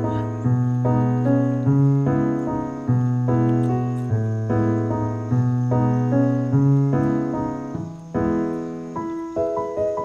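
Background keyboard music: a gentle melody over held bass notes that change about once a second.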